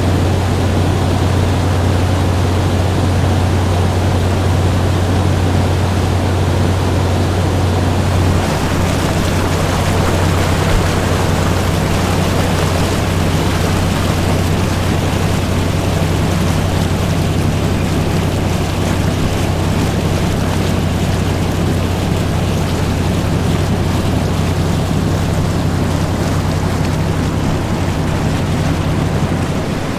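Motorboat KS-102's engine running with a steady low drone under a wide rush of water noise along the hull. About eight seconds in the drone's pitch shifts slightly and the water rush grows brighter.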